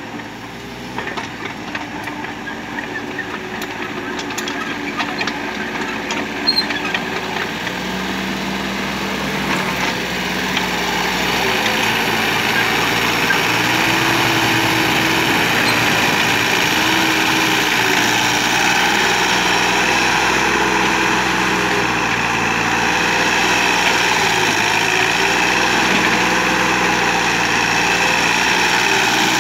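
Kubota KH-027 mini excavator's diesel engine running while it works, its note stepping up and down. A few light clicks and knocks come in the first several seconds, and the engine grows louder about ten seconds in.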